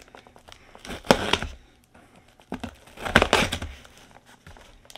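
Packing tape on a cardboard shipping box being slit with the file of a pair of nail clippers and torn open: two rough tearing rips, about a second in and again about three seconds in, with small scratches and clicks between.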